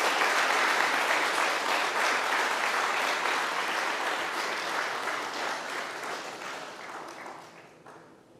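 Audience applauding, dense clapping that gradually dies away toward the end.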